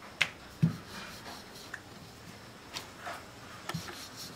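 Wooden rolling pin rolling out dough on a marble rolling board: soft rubbing strokes with a few short knocks as the pin and hands meet the stone.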